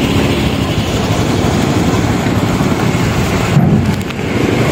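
Motorcycle riding slowly, a steady loud rumble of its engine mixed with wind noise.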